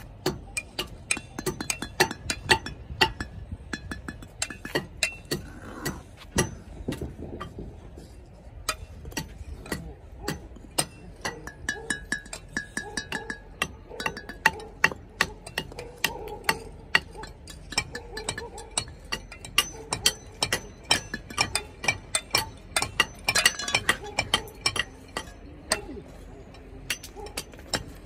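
Bricklaying: a steel trowel tapping and scraping clay bricks and mortar, with bricks clinking as they are set, in an irregular run of sharp knocks several times a second.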